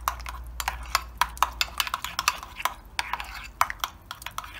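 A spoon stirring a thick yogurt-and-mayonnaise dip in a ceramic bowl, knocking and scraping against the bowl with irregular clicks several times a second.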